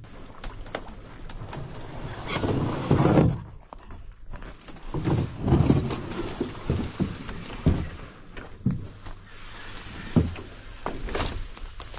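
A canoe hull being pushed through shrubs to the water: bursts of sliding and scraping with brush rustling, and a few knocks against the hull in the second half.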